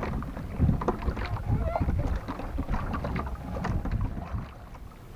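Irregular knocks, taps and rustles of a handline being pulled in by hand in a small wooden outrigger boat, over wind on the microphone and water around the hull.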